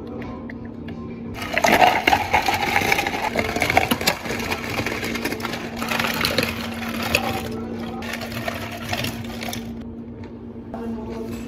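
Ice cubes scooped and dropped into plastic cups, a long rattling clatter that starts about a second and a half in and stops about two seconds before the end, over a steady low hum.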